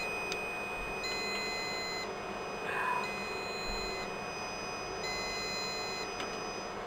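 Riello DVD 2200 UPS beeping: a one-second electronic beep about every two seconds, over a steady faint high-pitched whine.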